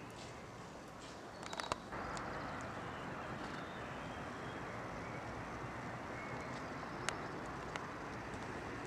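Steady outdoor background hiss with a few sharp clicks; it gets louder about two seconds in.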